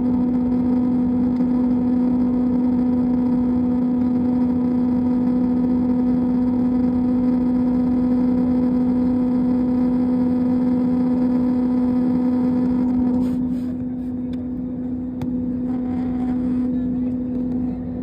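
Steady cabin drone of a jet airliner in flight, a constant engine hum with a strong low steady tone. It gets a little quieter about thirteen seconds in.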